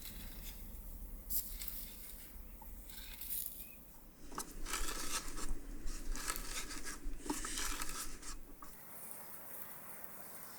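Faint handling sounds: scattered light clicks and knocks with stretches of soft rustling.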